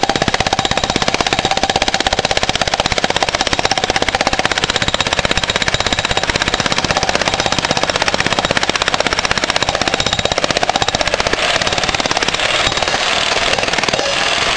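Electric jackhammer breaking old concrete: rapid, steady hammering with no break.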